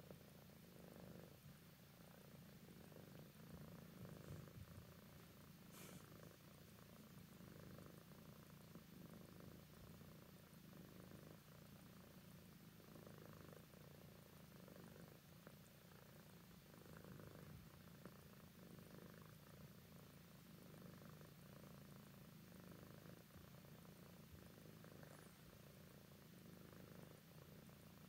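Adult tabby cat purring, faint and steady, while being stroked on a lap. A single short click about six seconds in.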